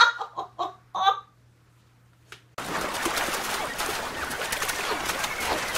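A dog's short yelps in the first second. After a brief silence comes a loud, steady rush of wind and waves at sea, with splashing.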